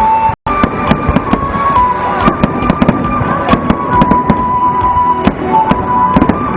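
Aerial fireworks going off in quick succession, a dense run of sharp cracks and pops, with steady high tones running underneath. The sound drops out briefly about half a second in.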